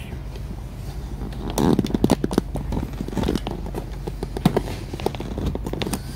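Irregular clicks and light knocks from a laptop being handled and operated, with a denser run of louder knocks about one and a half seconds in.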